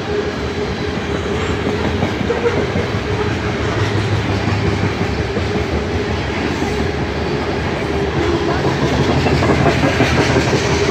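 Covered hopper cars of a BNSF freight train rolling past close by: a steady rumble of steel wheels on the rails with a held tone, growing somewhat louder near the end.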